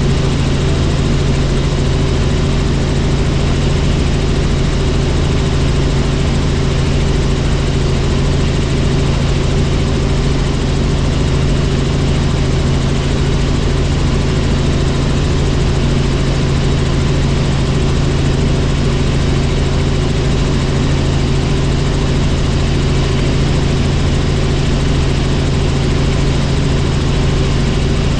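Helicopter in flight: its rotor and engine running at a steady, unchanging drone, with a strong deep hum under an even rushing noise.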